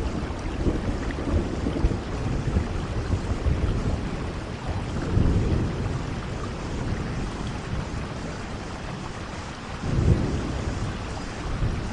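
Steady rain, with a low rumble that swells up a few times.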